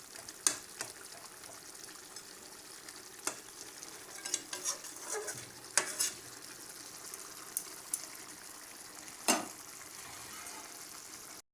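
Mutton curry frying and sizzling in a pot while it is stirred. The stirring utensil knocks and scrapes against the pot now and then, loudest about nine seconds in. The sound cuts off suddenly just before the end.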